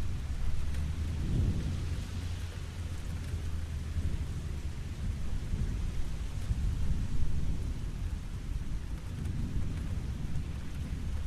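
Steady rain falling, an even hiss with a deep, continuous low rumble underneath that swells and eases.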